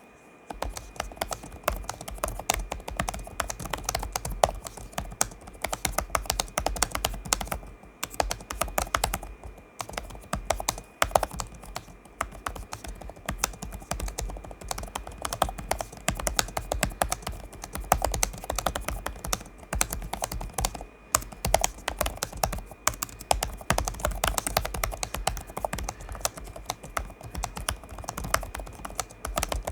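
Fast, continuous typing on the built-in keyboard of an MSI Summit E16 Flip (2023) laptop during a typing test: a rapid, unbroken stream of key clicks that starts about half a second in.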